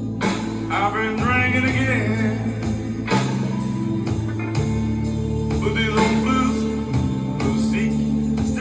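A blues song playing: a bass line and guitar under a singing voice that comes in twice.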